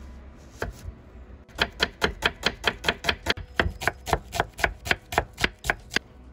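Chef's knife slicing a red onion on a wooden cutting board, the blade knocking the board with each cut. A single cut or two comes first, then from about a second and a half in a quick, even run of about five cuts a second that stops near the end.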